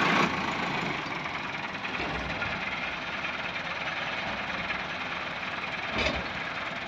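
Massey Ferguson 385 tractor's diesel engine idling steadily, with a single thump about six seconds in.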